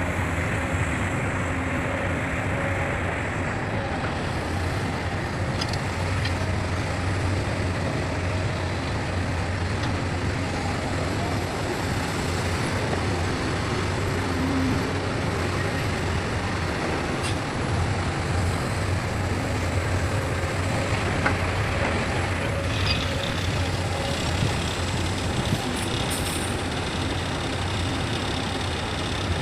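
Heavy diesel machinery running steadily, a constant low engine drone, with a few faint short higher-pitched sounds in the second half.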